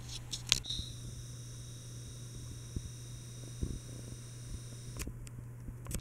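Litex Vortex hugger ceiling fan running, its motor giving a steady low hum, with a few sharp clicks about half a second in.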